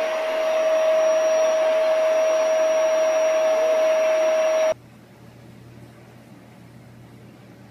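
Steady whine of an electric appliance motor with rushing air, which cuts off suddenly about four and a half seconds in. After it there is only a faint low hum.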